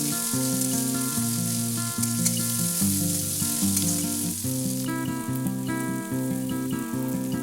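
Onions and green chillies sizzling as they fry in hot mustard oil in a kadai, under background music of sustained notes. The sizzle thins about five seconds in.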